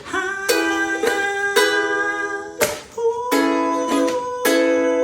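Ukulele strummed in slow chords, a fresh strum roughly every second, in an instrumental gap between sung lines.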